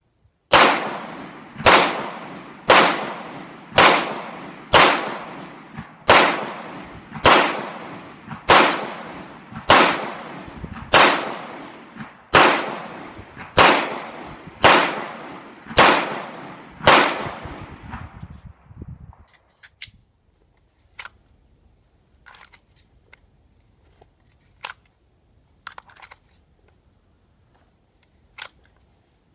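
Glock 17 Gen 4 9 mm pistol fired about fifteen times at a steady pace of roughly one shot a second, each shot ringing out with a long echo tail. The firing then stops, leaving quiet with a few faint clicks and knocks.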